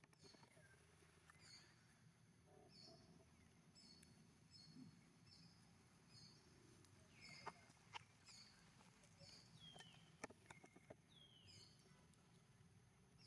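Faint outdoor ambience: a high chirp repeats evenly about every two-thirds of a second. Two short falling calls come near the end, and a few sharp clicks sound around the middle.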